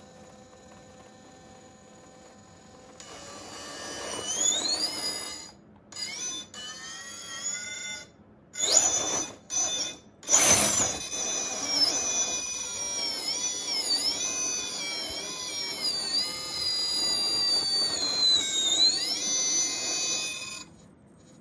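Electric motor and gears of a scale RC rock crawler whining as it drives, the pitch rising and falling with the throttle: a few short pulls with gaps, then a longer run that stops shortly before the end.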